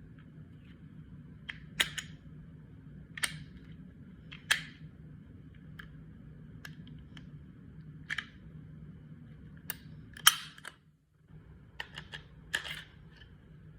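Glock 19 Gen 5 pistol being handled during disassembly: a series of sharp, irregularly spaced clicks and short scrapes of its slide and parts, about eight in all, over a steady low hum.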